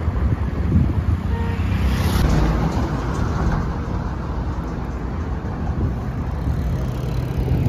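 Road traffic: motor vehicles running past with a steady low rumble, one passing close about two seconds in.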